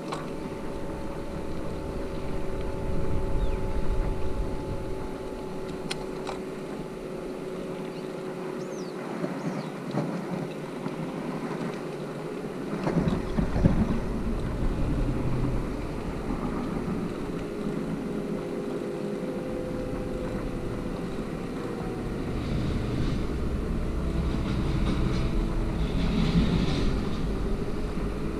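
Wind buffeting an action camera's microphone while cycling on asphalt, the rumble rising and falling in gusts. Under it runs the steady hum of the bicycle rolling along the road.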